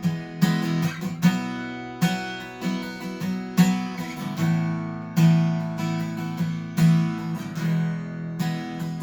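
Acoustic guitar strumming chords, with strokes struck at an uneven spacing and the chords left ringing between them, and no singing.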